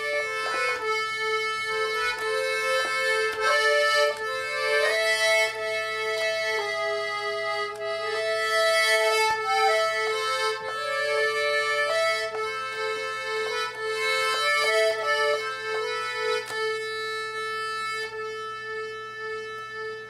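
Piano accordion playing a folk melody over a steady held note.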